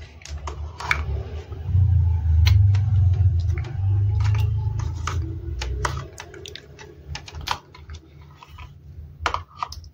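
Scattered small clicks and taps of hands handling a laptop and plugging in an audio cable, with a low rumble of handling noise from about two to six seconds in.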